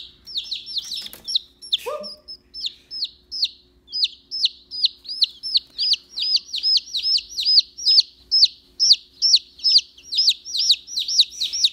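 A baby chick peeping loudly over and over in a steady, alarm-like run of about three peeps a second. Each peep is a short high note that falls away.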